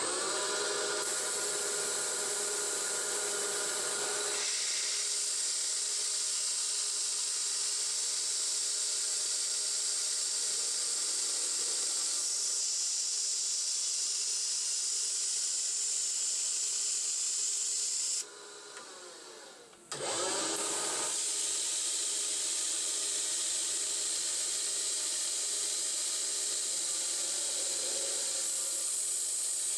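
CNC-converted 9x20 benchtop metal lathe running at about 1400 RPM, a steady motor whine under a high hiss, while an insert cutoff tool parts off half-inch stainless bar. The sound drops away for about two seconds roughly two-thirds of the way through, then comes back with a rising whine as the spindle spins back up.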